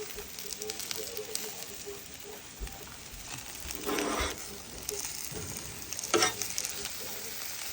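Salmon and vegetables sizzling steadily on a grill while they cook, with two brief knocks about four and six seconds in.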